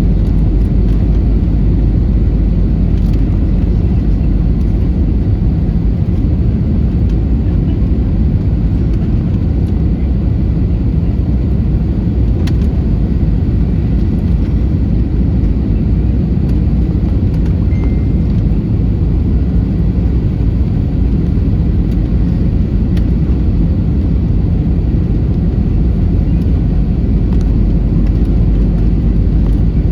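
Steady low rumble of an airliner's engines and rushing air heard inside the cabin during the approach to landing.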